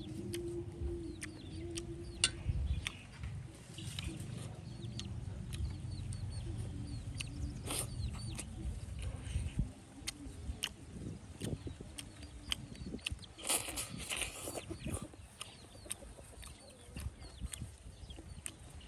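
Chickens clucking, with a denser run of calls a little past the middle, amid scattered sharp clicks.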